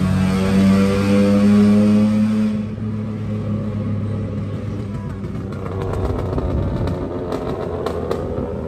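Suzuki Cultus engine heard from inside the cabin, pulling under acceleration with its pitch rising slightly over the first couple of seconds. The sound then changes abruptly to lower, rougher engine and road noise, with scattered clicks in the second half.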